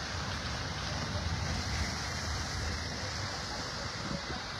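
Steady hiss of light rain on a wet cobbled street, with a low rumble of wind on the microphone.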